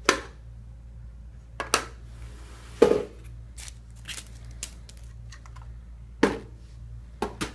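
Scattered sharp clicks and knocks of computer hardware being handled and set down on a workbench, five loud ones among smaller taps, over a steady low hum.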